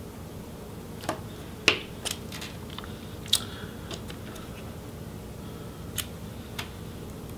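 Small Phillips screwdriver clicking and tapping against the metal display hinge of a Lenovo ThinkPad T470 as the hinge is worked loose. About eight irregular light clicks, the sharpest a little under two seconds in.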